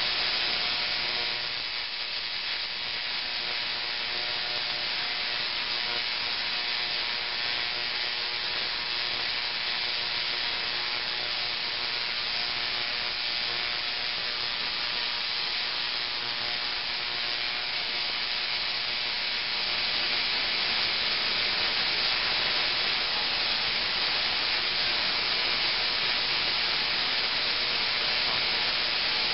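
Spark-gap Tesla coil (900 VA, neon sign transformer driven, synchronous rotary spark gap) firing: a steady buzzing crackle of blue arcs leaping from the toroid into the air. It drops a little in level about two seconds in and grows louder again about two thirds of the way through, as the arcs lengthen.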